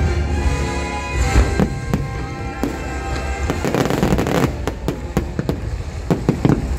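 Fireworks bursting in a rapid string of bangs and crackles over loud show music, thickest about four seconds in.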